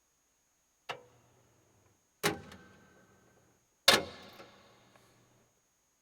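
Three sharp knocks about a second and a half apart, each louder than the one before, each ringing on and dying away in the church's echo.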